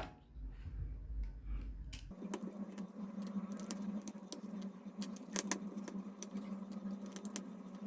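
Faint, scattered light metallic clicks and clinks of a Shimano Catana spinning reel's body and small metal parts being handled and worked on during disassembly. A steady low hum starts about two seconds in.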